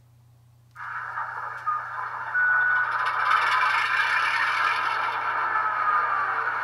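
Model GP28 diesel locomotive's sound decoder playing an EMD non-turbo 567 prime mover starting up. It comes in abruptly about a second in and grows louder a second and a half later.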